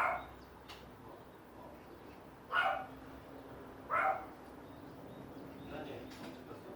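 A dog barking in short single barks: three loud ones in the first four seconds, then a fainter one near the end.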